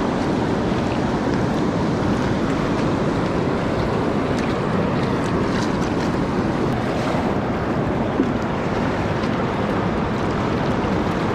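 Steady rushing of a fast river running over rapids: an even, unbroken wash of water noise, with a few faint clicks midway.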